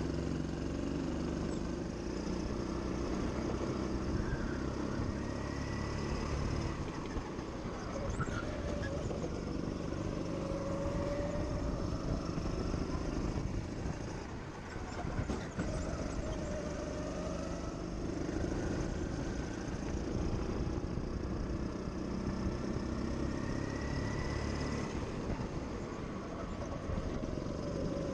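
Go-kart engine running at speed, heard from the driver's seat, its pitch rising and falling a few times with the throttle.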